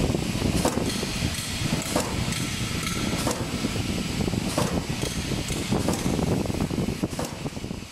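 Corn flour straw extrusion line running: a steady machine noise with irregular clicks and knocks.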